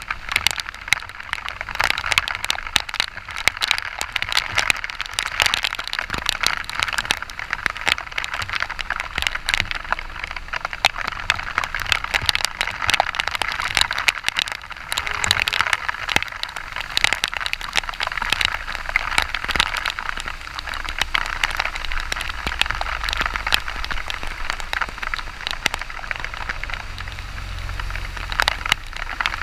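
Heavy rain striking close to the microphone as a dense, steady rush of rapid raindrop hits. Under it runs a low rumble that grows stronger over the last several seconds.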